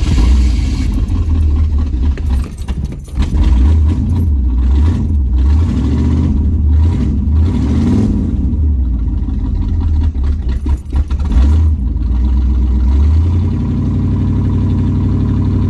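1979 Chevrolet Monte Carlo's carbureted engine catching on a cold start and running rough and uneven while the gas pedal is pumped, stumbling a couple of times, heard from inside the cabin. Near the end it settles into a steadier run with the pedal held.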